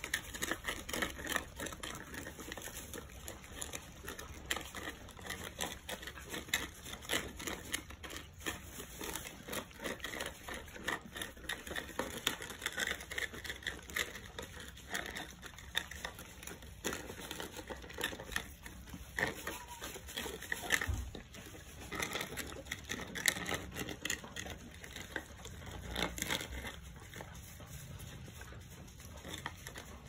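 Several Jindo puppies eating dry kibble from plastic bowls at once: a dense, irregular crackle of many small crunches and clicks.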